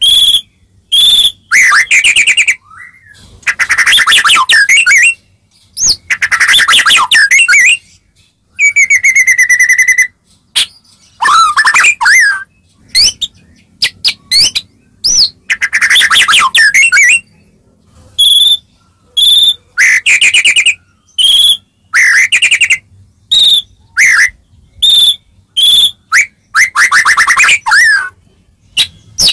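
White-rumped shama (murai batu) singing loudly: short phrases of clear whistled notes and fast rattling trills, separated by brief pauses, with one long held whistle about nine seconds in. It is a lure song, used to provoke other shamas into answering.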